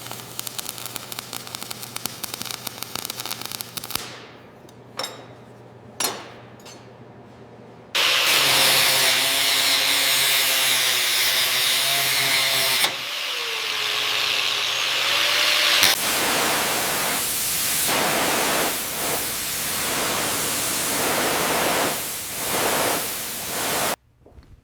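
Spliced-together workshop power-tool noise: rapid dense clicking for a few seconds, a quieter stretch with a few clicks, then a loud hissing spray with a wavering whine, followed by loud pulsing tool noise that cuts off abruptly near the end.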